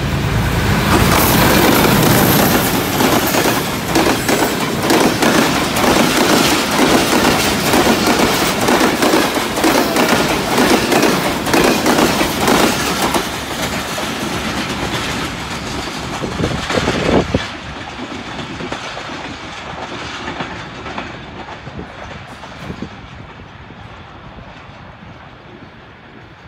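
Diesel-hauled passenger express (HBU-20 locomotive) passing close by at speed, the locomotive's engine and the coaches' wheels clattering over rail joints and points. The noise stays loud for about thirteen seconds, drops off sharply about seventeen seconds in as the last coach goes by, then fades as the train draws away.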